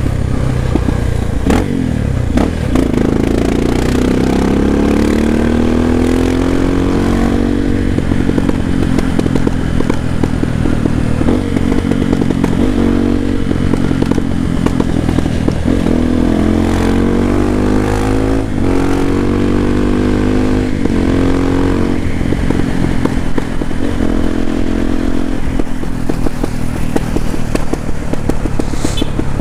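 Honda XR250 Tornado's single-cylinder four-stroke engine pulling up through the gears. Its pitch rises in steps, breaking briefly at each gear change, twice over, and it runs at a steadier pitch in between.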